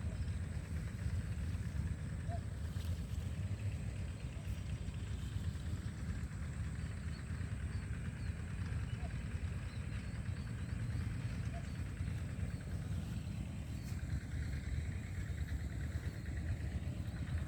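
Steady low outdoor rumble, with faint, scattered high chirps above it.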